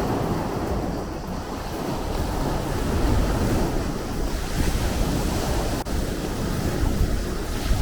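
Sea waves breaking and washing, with a wave surging in about three seconds in and its hiss spreading for several seconds, over a low rumble of wind on the microphone. A brief click about six seconds in.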